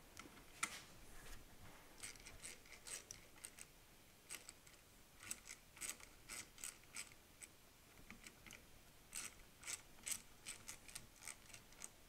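Small ratcheting socket driver with a Torx bit clicking in irregular runs of quick, light clicks as screws are turned. The ratchet mechanism is stripped inside and keeps slipping instead of tightening.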